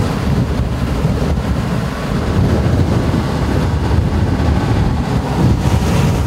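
Strong storm wind buffeting the microphone, a loud low rumble.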